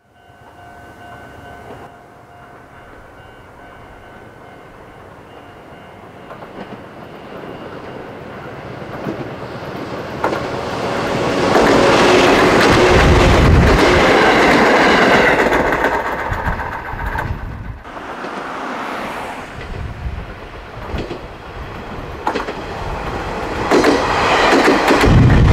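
A Chichibu Railway 6000 series electric train approaches and passes close by, its wheels clacking over the rail joints and loudest about halfway through. After a sudden drop, a 7500 series electric train comes through, rising again near the end.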